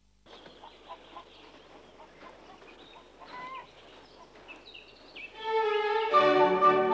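Faint bird calls, short chirps over a steady hiss, then a string orchestra comes in about five seconds in and is loud from then on.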